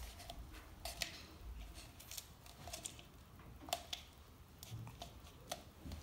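Thin PET plastic bottle pieces handled and pressed together, giving scattered crinkles and sharp clicks about once a second.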